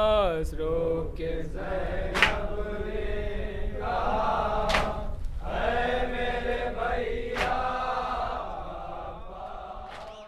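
Male voices chanting a Shia noha (Muharram lament) refrain together, with a sharp chest-beating slap (matam) about every two and a half seconds. The sound fades out near the end.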